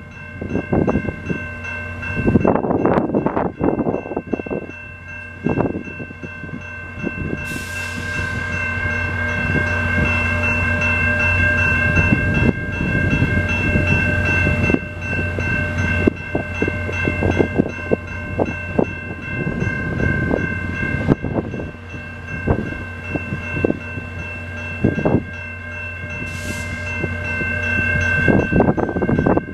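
Level-crossing warning bell ringing continuously, over the low steady hum of a VIA Rail diesel locomotive idling at the station. Irregular louder rumbles come and go, with two short hisses, one about a quarter of the way in and one near the end.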